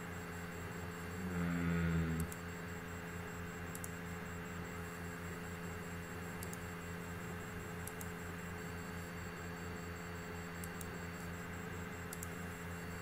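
Steady low machine hum with a faint hiss, swelling louder for about a second near the start before settling back.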